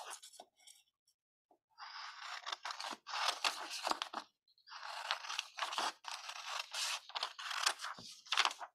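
Scissors cutting through sheets of colour paper in a run of crisp snips, starting about two seconds in and going on in two stretches with a short break between them.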